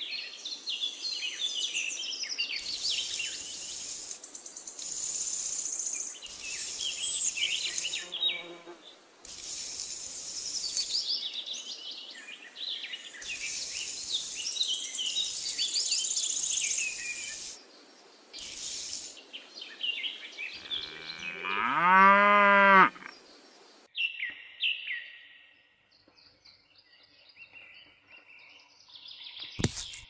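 Chirping birds and insects, with one long cow moo about three-quarters of the way through that rises and then falls in pitch. A sharp click comes just before the end.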